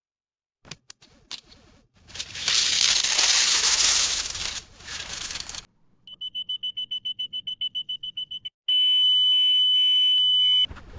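A few faint clicks, then a loud noisy stretch of about three and a half seconds. Then a run of rapid high electronic beeps, about eight a second, for two seconds or so, and one long steady high electronic beep of about two seconds.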